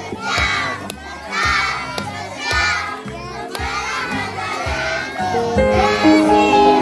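A group of children shouting or chanting together in loud bursts about once a second over a steady music beat. About five and a half seconds in, held melodic music notes come in.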